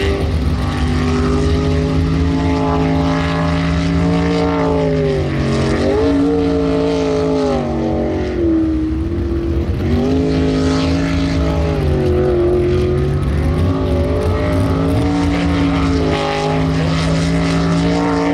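Sprint boat's engine running hard through a winding water course. Its pitch dips and climbs again several times as the boat works through the turns.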